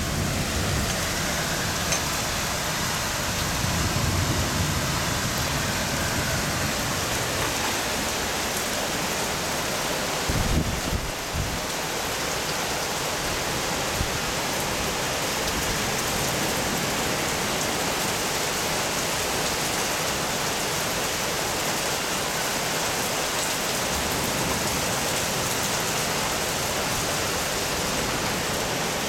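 Heavy rain pouring in a storm, a dense steady hiss. Low gusts of wind rumble on the microphone in the first few seconds and again about ten seconds in.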